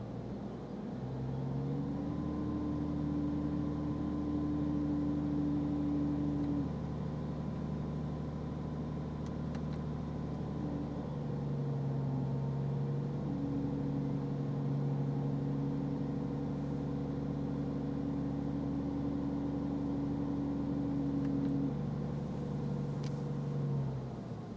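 BMW E60 air-conditioning system running with a steady droning hum, the noise the car is shown for. The hum comes in about a second in, shifts in pitch about halfway, and stops just before the end.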